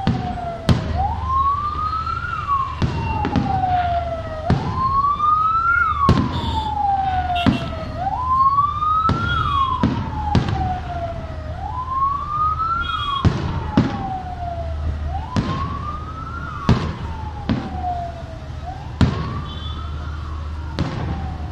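A siren wailing, its pitch rising over about a second and falling more slowly, repeating about every three and a half seconds. Sharp bangs of aerial fireworks go off every second or two over it.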